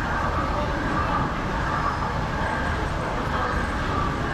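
Aquarium hall ambience: a steady low rumble with the indistinct murmur of distant visitors' voices.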